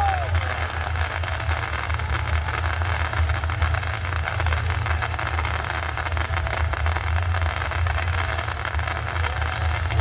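Ground fountain fireworks spraying sparks: a steady hissing rush with a dense, fast crackle.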